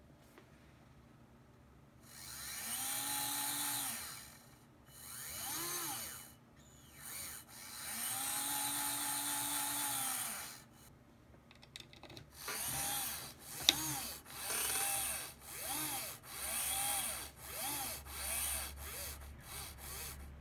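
Modular synthesizer, played through its phallic "Voltage Controlled Penis" module, making a noisy, buzzy tone whose pitch swoops up and falls back in arcs. Two long swells come first, then from about halfway a run of short swoops about one a second, with a sharp click among them.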